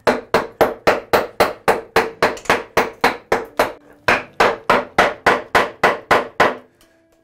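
Wooden mallet striking a chisel, chopping a recess into a laminated wooden workbench top: quick, even blows, about four a second, with a short pause a little past halfway; the blows stop shortly before the end.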